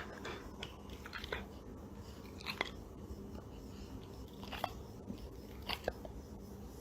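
Faint, irregular chewing with scattered crisp crunches and clicks.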